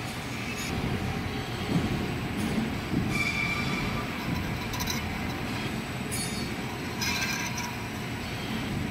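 Large engine lathe running, its boring bar cutting an oil groove inside a spinning bushing: a steady low rumble with brief high squeals from the cut every few seconds.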